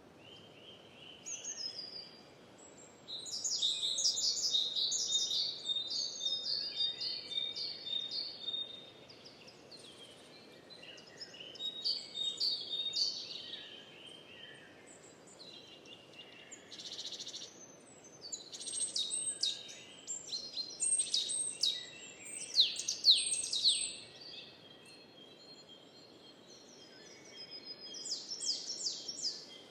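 Birds singing in several bursts of quick, high chirps and trills, with quieter gaps between the bursts, over a faint steady outdoor background hiss.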